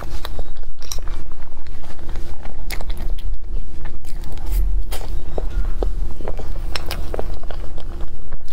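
Close-up eating of soft, cream-layered mille crepe cake: irregular wet mouth clicks and smacks as forkfuls are bitten and chewed.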